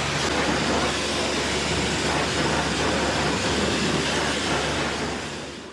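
High-pressure washer wand spraying water onto a car's wheel and tyre: a steady, even spray noise that fades out near the end.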